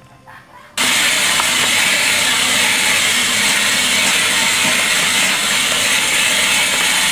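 Cordless drill spinning a wire wheel brush against the rusty metal stand of a Lakewood K-223 fan, scrubbing off rust with a steady hiss. It starts abruptly about a second in.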